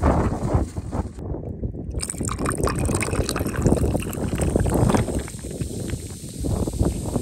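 Wind buffeting the microphone, then from about two seconds in a steady stream of liquid poured into a wooden tub of water and ice chunks, splashing and bubbling.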